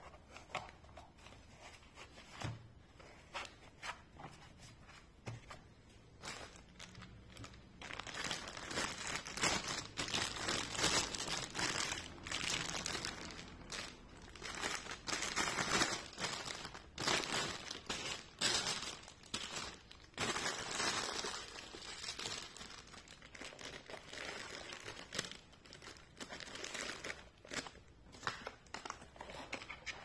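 Clear plastic packaging bag crinkling as gloved hands handle it. A few light taps come first, then dense crinkling starts about eight seconds in and thins out near the end.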